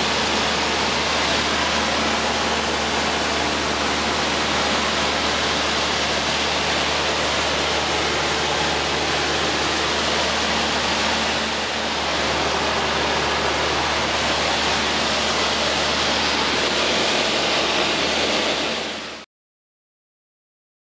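Cessna 152 cabin noise in flight: the four-cylinder Lycoming O-235 engine, propeller and airflow blend into a loud, steady rushing hiss with a faint low drone under it. It fades out quickly near the end into silence.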